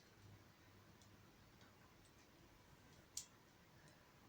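Near silence with a few faint plastic clicks of Lego pieces being handled and fitted, one sharper click about three seconds in.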